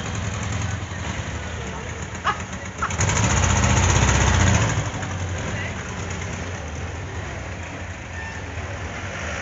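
1968 Porsche 912's air-cooled 1.6-litre flat-four running at idle, with a short rev about three seconds in that lasts under two seconds before settling back.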